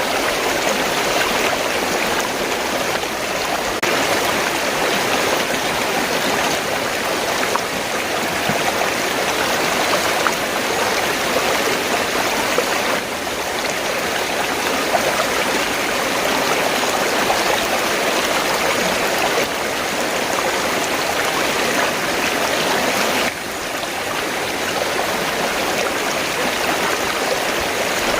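River water rushing and babbling in a steady flow, with small sudden shifts in level about 13 and 23 seconds in.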